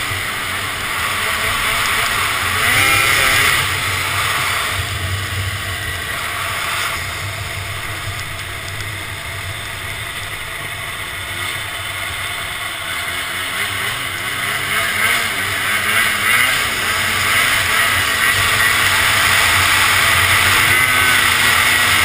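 Snowmobile engine running at speed, with a steady rush of wind over the helmet-mounted microphone; it grows louder over the second half.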